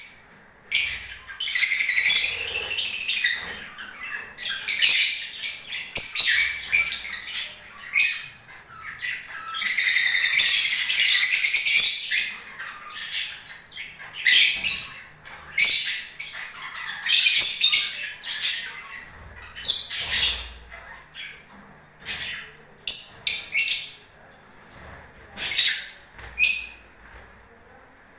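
Lovebirds calling: repeated sharp, high chirps and squawks, with two longer bouts of dense chattering, one about two seconds in and one about ten seconds in.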